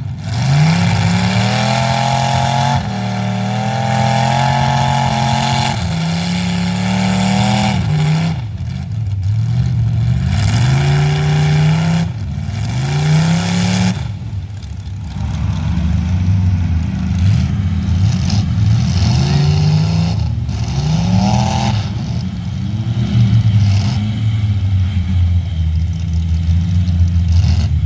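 Big-engined lifted mud-bogging trucks revving hard as they plow through a deep mud pit, the engine pitch repeatedly climbing and dropping back as they shift and work the throttle.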